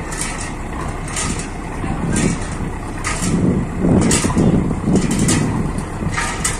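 Cantrang fishing boat's diesel engine running with a steady low drone, swelling louder for about two seconds in the middle, with short sharp clatters now and then.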